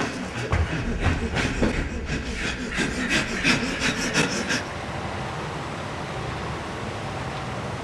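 Rapid, irregular scraping and knocking that stops suddenly about four and a half seconds in, leaving a steady low hiss.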